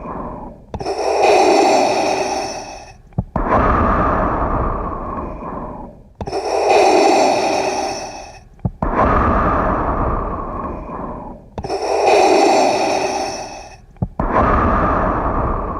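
Darth Vader's mechanical respirator breathing: slow, even breaths through the mask. A hissing breath with a bright, ringing edge alternates with a lower, duller rush, making about three full cycles of roughly five and a half seconds each. A short click sounds where the lower breath begins.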